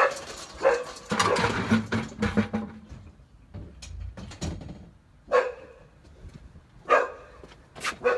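A dog barking: about six short single barks with pauses between them, the longest gap near the middle.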